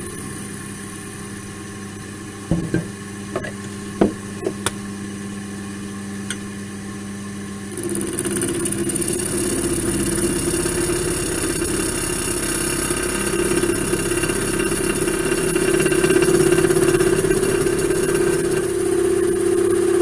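Wood lathe running steadily, with a few sharp knocks a few seconds in. About eight seconds in it gets louder as the chisel starts cutting the spinning laurel blank, a steady cutting noise over the motor hum.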